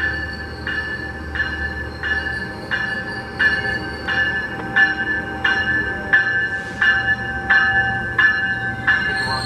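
A railroad crossing warning bell ringing steadily, about one and a half strokes a second, over the low rumble of a train, which eases off about two seconds in.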